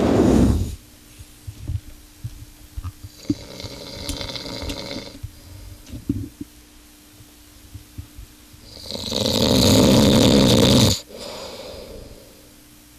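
Very loud snoring from a man asleep. A loud snore tails off in the first second, then a softer, hissing breath comes in the middle. About nine seconds in, a long, loud, rasping snore cuts off abruptly. A faint steady hum runs underneath.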